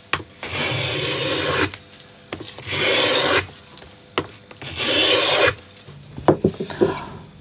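Miniature Japanese woodworking plane (a sashimono craftsman's 'baby plane') shaving wood in three long scraping strokes, each about a second long, as it cuts a curved groove. A few light knocks and rustles follow near the end.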